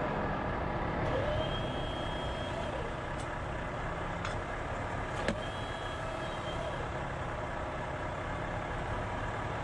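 Heavy truck hauling a wind-turbine blade on an extended trailer, its engine running steadily as it creeps slowly around a corner. A faint high whine comes and goes a few times, and a few sharp clicks land in the middle.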